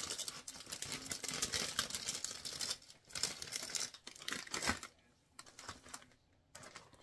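Plastic candy packaging crinkling and tearing as it is handled, stopping about five seconds in.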